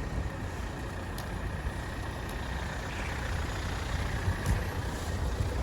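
Steady low rumble of a motor vehicle, with faint scattered ticks.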